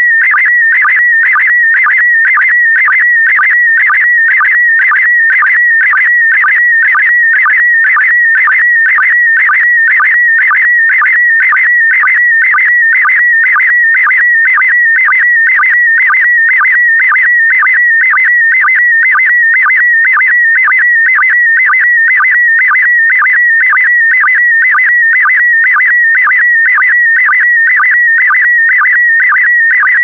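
Slow-scan TV image signal in PD120 mode: a loud warbling tone near 2 kHz that carries the picture line by line, with a regular beat about twice a second from the line-sync pulses.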